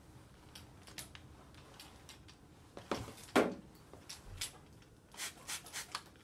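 Love 2 Clean spray mop's microfiber pad rubbing and sliding over a hardwood floor, with scattered knocks and clicks from the mop head. The loudest knock comes about three and a half seconds in, and a quick run of ticks comes near the end.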